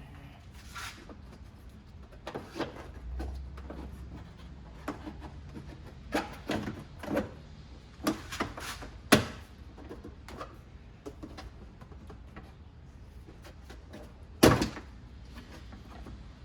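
Scattered clicks, taps and knocks of hands working loose plastic trim and clips in a car, with sharp knocks about nine seconds and fourteen and a half seconds in.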